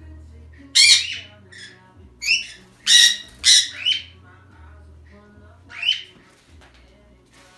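Pet parrots squawking: about six loud, harsh calls, with several in quick succession about three seconds in.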